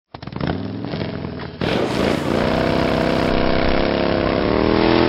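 An engine running and slowly rising in pitch over a steady rush of road and wind noise, getting louder about a second and a half in.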